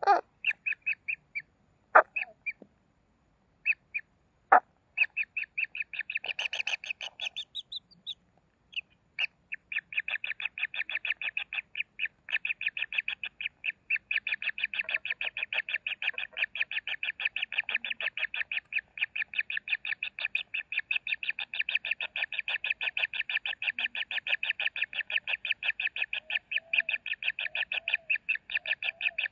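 Kingfisher chicks calling: a few sharp single calls at first, then from about nine seconds a steady, rapid pulsing rattle of begging calls that keeps going.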